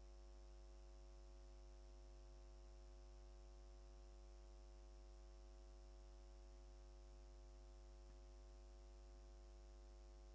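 Near silence: a faint, steady electrical mains hum with its overtones.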